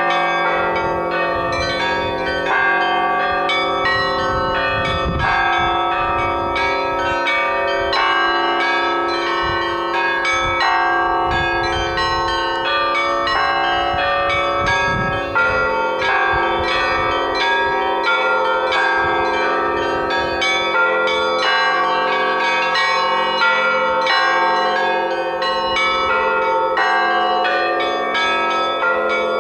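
Russian Orthodox church bells rung together in a continuous peal, many bells of different pitches struck in quick, overlapping succession so that their tones keep ringing into one another.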